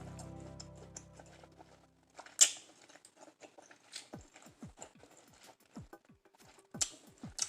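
Close-miked eating of seafood in sauce: wet chewing, lip smacks and sharp mouth clicks, one louder click about two and a half seconds in. A held music chord fades out in the first two seconds.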